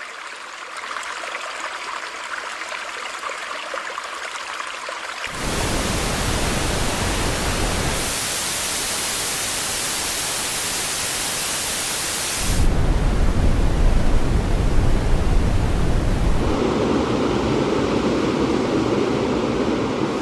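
iPhone's built-in Background Sounds playing steady, even noise that switches abruptly to a different noise type four times, each one brighter or deeper than the last.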